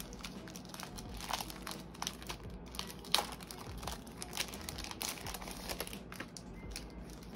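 Clear plastic packaging sleeve crinkling and rustling as it is handled and pulled off a postcard set, in a run of irregular crackles with one louder crackle about three seconds in.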